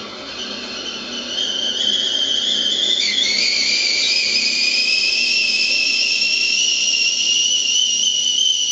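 Stovetop teakettle starting to whistle: a two-pitched whistle swells over the first two seconds, dips in pitch about three seconds in, then climbs slowly and holds loud and steady.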